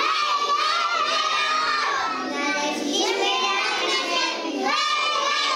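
A group of young children singing together, holding one long note at the start and another near the end.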